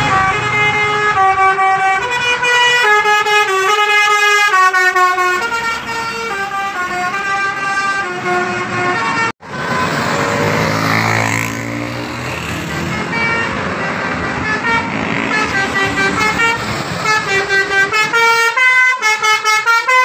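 Bus 'telolet' horn: a multi-tone air horn playing a quick tune of stepped notes. Midway the horn stops and passing traffic takes over, with engines falling in pitch as they go by; then the horn tune starts again, pulsing in fast short notes near the end as the bus approaches.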